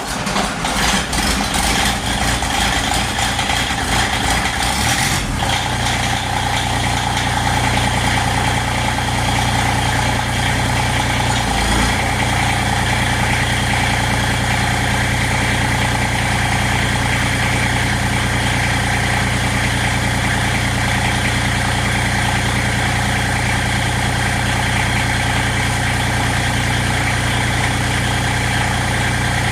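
Tractor engine catching and running unevenly for the first five seconds or so, then settling into a steady idle.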